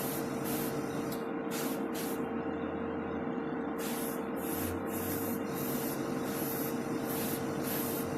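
An airbrush spraying paint in short hissing pulses, about two a second, as the trigger is worked, with a pause of a second or so part-way through. A steady hum runs underneath.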